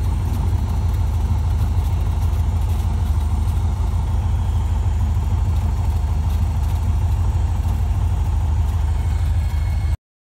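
Cessna 150's four-cylinder Continental O-200 engine running at low taxi power, a steady low drone heard from inside the cockpit. It cuts off suddenly near the end.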